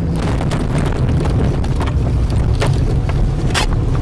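Off-road 4x4's engine running at low speed, heard from inside the cab as a steady low rumble, with scattered clicks and knocks of the body and interior rattling over rough ground.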